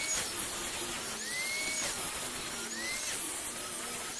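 Angle grinder fitted with a sanding disc, running at high speed and sanding a wooden board. Its high whine rises and drops back about every second and a half over a steady scouring hiss.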